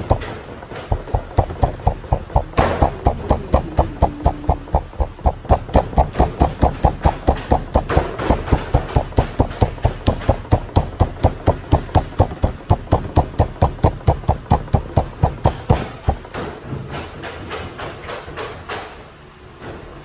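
Hand strokes thudding on a strip of dough on a worktable as the filling is spread, fast and even at about four thuds a second, stopping about four seconds before the end; softer pressing and rubbing follow.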